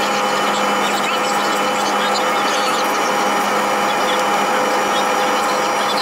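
Jet airliner noise heard inside the cabin: a loud, even rush with several steady whining tones that never change.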